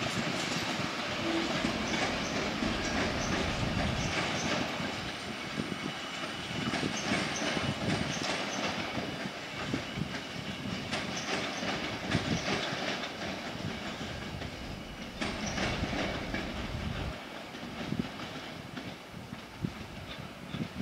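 Passenger coaches being hauled slowly through the station by a shunting locomotive, the wheels clicking and knocking over rail joints and points, with faint wheel squeal. The rumble gradually fades as the rake moves away.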